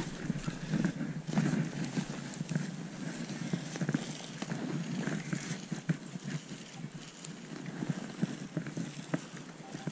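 A spade cutting and levering into grassy turf and soil, a run of short scrapes and thuds as a plug is dug out. Near the end a metal detector starts to beep.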